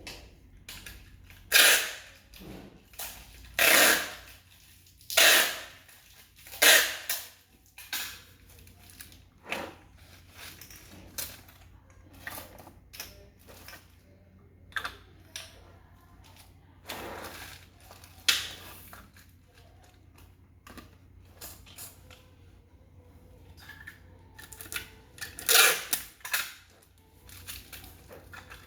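Irregular sharp knocks and clacks of hard objects being handled and set down, a handful of loud ones among many quieter clicks.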